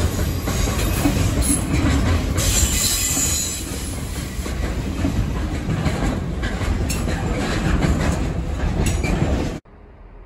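Container freight train's wagons rolling past, with steady wheel-on-rail noise and repeated clicks as the wheels cross rail joints. Near the end the sound cuts off abruptly, leaving a much quieter steady background.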